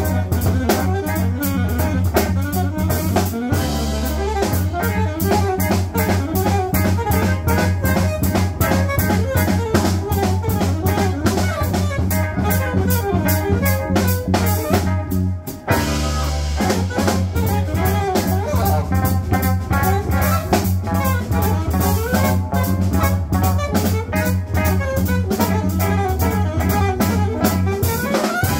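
Live jazz band: alto saxophone playing the lead line over electric guitar, electric bass and drum kit, with a brief break about halfway through.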